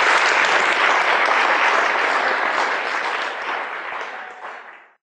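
Audience applauding after the lecture ends, a dense steady clapping that fades away and stops shortly before the end.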